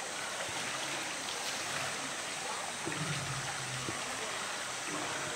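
Steady rush of water in a polar bear's pool, with light splashing as the bear swims at the surface.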